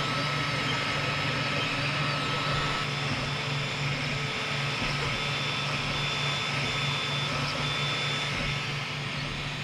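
XVICO X3S 3D printer running mid-print: a steady hum and whir, with a high tone that keeps switching on and off in short spells.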